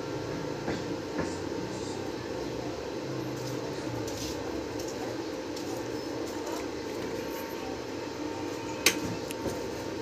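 A steady machine-like drone with a single sharp click near the end.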